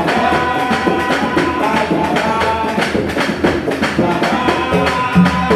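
Live Martinican bèlè music: a steady rhythm of hand-drum strokes on a tanbou bèlè barrel drum, with singing over it.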